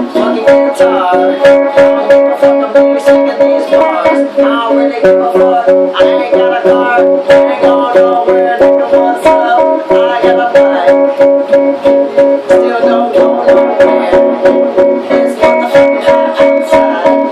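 Guitar music: a guitar strummed in a steady rhythm, about three strokes a second, over sustained pitched notes.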